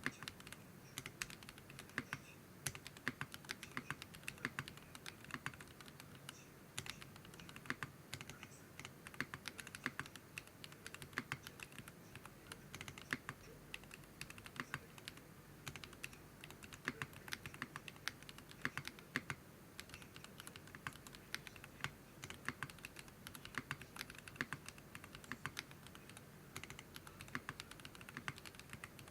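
Continuous typing on a Geonworks F1-8X mechanical keyboard with Zaku switches, a 1 mm aluminium plate and PBT keycaps: rapid, uneven runs of sharp keystroke clacks, several per second.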